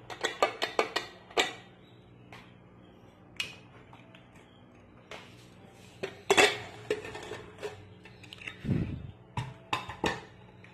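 Aluminium pressure cooker being opened: a quick run of metal clicks as the whistle weight is lifted off the vent. About six seconds in the lid clanks as it is worked free, followed by a dull thud and a few more metal clinks near the end.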